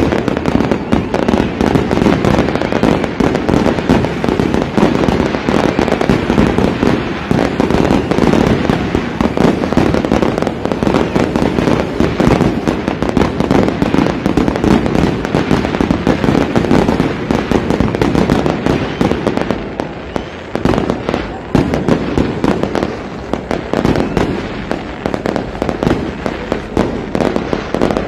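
Fireworks display: a continuous barrage of rapid, overlapping bangs and crackling bursts, easing slightly about twenty seconds in before picking up again.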